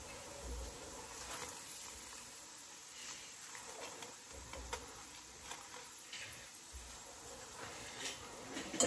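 Paratha frying in butter on a griddle: a faint sizzle with scattered light ticks and crackles, one slightly sharper tick near the end.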